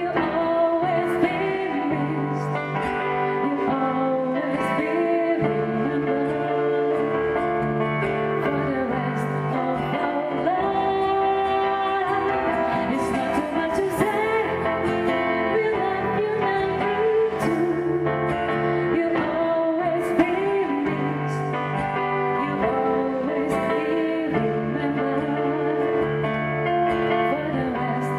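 A woman singing a slow pop ballad, accompanied by acoustic guitar and an electronic keyboard playing piano.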